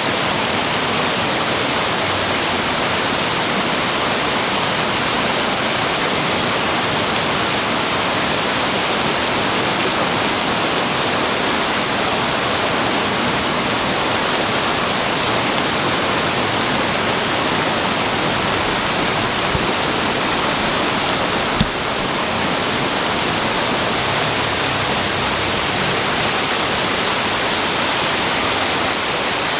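Floodwater rushing steadily in a swollen brook, a dense unbroken roar of water. A single short click about two-thirds of the way through.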